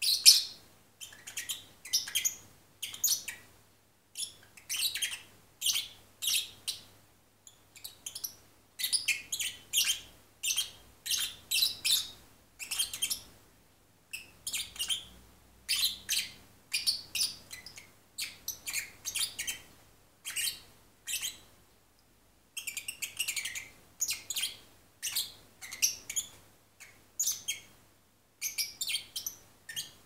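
Lovebird singing while half asleep: a steady run of quick, high chirps and twitters in bursts of a second or two, with short pauses between.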